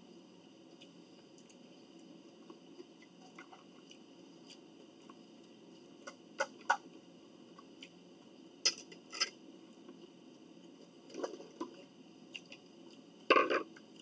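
Eating at a table: a metal fork clinking on a dish a few times between quiet chewing, the loudest short clatter near the end.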